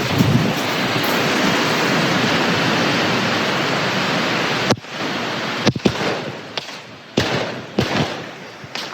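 Fireworks going off: a loud, steady hiss of a burning firework for about four and a half seconds that cuts off suddenly, then a string of sharp, irregular bangs, about eight in four seconds.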